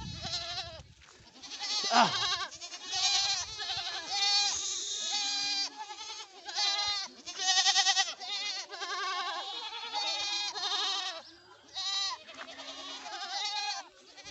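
A herd of goats, young kids among them, bleating: many wavering calls overlap one after another with only brief pauses.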